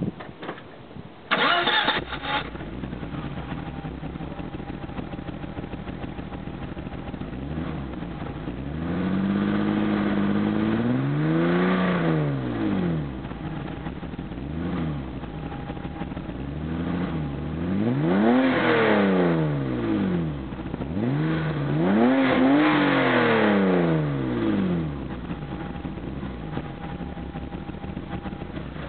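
BMW E30 325i's M20 straight-six, heard through its Scorpion exhaust, starting up with a short loud burst about a second in and settling to a steady idle. It is then revved three times, each rev rising and falling back to idle: one near the middle, two close together later on, plus a small blip between the first and second.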